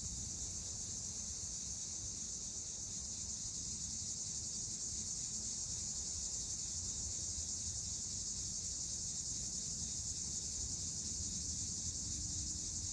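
A chorus of cicadas buzzing in a steady, unbroken high-pitched drone, with a low rumble beneath.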